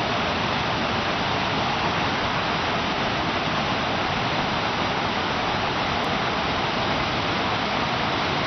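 Whitewater rapid on a mountain river: the steady, even rush of churning white water.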